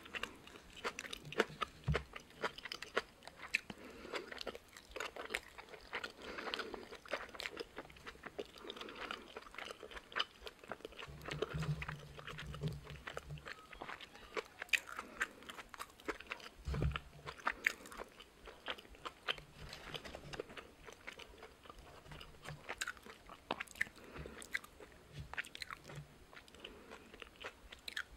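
Close-miked chewing of boiled pork and napa cabbage wraps: a steady run of crisp crunches and wet mouth clicks, with a few deeper thuds along the way.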